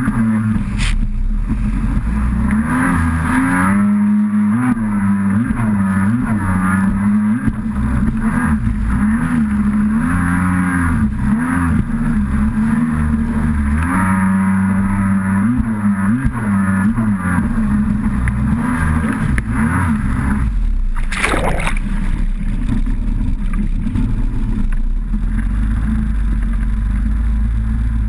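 Kawasaki SXR800 stand-up jet ski's two-stroke twin engine running hard, its pitch rising and falling over and over as the throttle is worked, with a low rumble and the rush of water. A short loud burst of noise about three-quarters of the way through.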